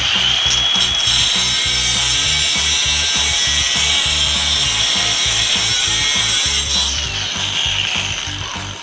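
FLEX 24V brushless 5-inch angle grinder with a cutting wheel, starting up fast to a high steady whine and cutting through a steel bar without bogging down. About seven seconds in, the whine glides down as the wheel spins down. Background music with a beat runs underneath.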